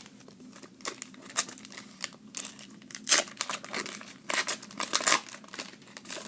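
A trading-card pack wrapper crinkling and tearing as it is ripped open, in a run of irregular crackles that are loudest in the middle and second half.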